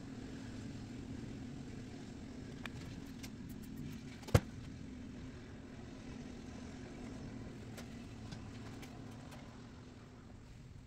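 A few light metallic clicks and one sharp knock about four seconds in, from hand work on a VW Beetle engine's flywheel as it is worked off, over a steady low hum.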